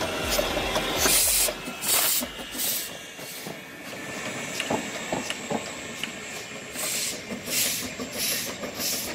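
A 1955 Kp4 narrow-gauge steam locomotive chuffing as it rolls past, each exhaust beat a short hiss of steam, with a few sharp clicks from the wheels and running gear in the middle. The chuffs are strongest at the start and again near the end.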